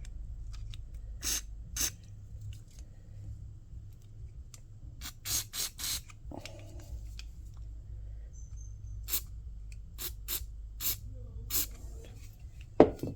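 Aerosol contact cleaner sprayed into a small-engine carburettor in about eleven short squirts, some in quick runs, with a sharp knock near the end. A steady low hum sits underneath.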